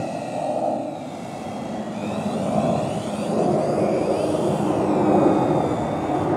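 A small radio-controlled model airplane's motor and propeller whine overhead, the pitch gliding up and down as it flies and turns. A steady low rush of wind on the microphone runs underneath.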